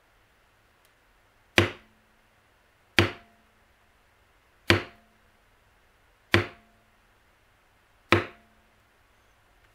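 A mallet striking a leather beveling tool as it is walked along a carved line in dampened leather: five sharp taps, about one every second and a half, each dying away quickly.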